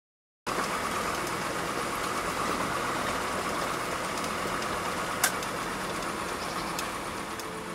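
Land Rover driving along a dirt road: steady engine and tyre noise starting about half a second in, with one sharp click about five seconds in.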